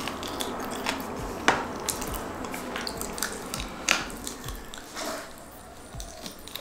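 Close-miked chewing and mouth sounds of a person eating a handful of biryani rice, with scattered sharp lip smacks.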